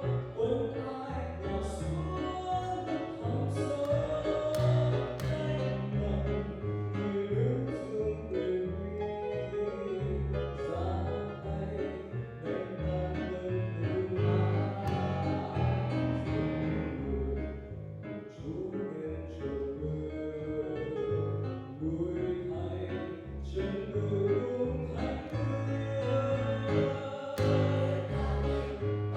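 Church choir singing a hymn with keyboard accompaniment, sung voices over a steady low bass line.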